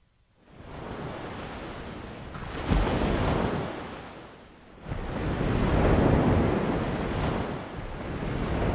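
Ocean surf washing onto a shore, a steady rushing that swells and ebbs: it rises about three seconds in, fades, then comes back stronger about five seconds in.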